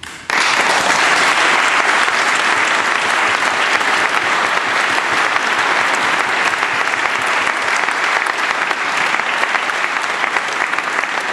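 Audience applauding: dense clapping from many hands starts suddenly just after the opening and holds steady, easing slightly near the end.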